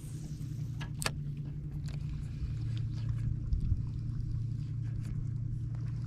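Steady low rumble of wind and water around a small fishing boat on a shallow flat, with a sharp click about a second in.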